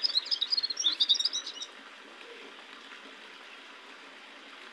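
Caged gulsar songbird singing a fast, high twittering song that stops about a second and a half in, leaving a faint steady hiss.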